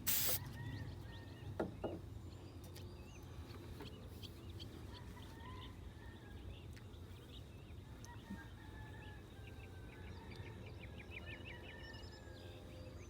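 An aerosol can of clear lacquer finishes a short hiss right at the start, followed by two small knocks. After that, birds chirp and call faintly over a low steady outdoor rumble.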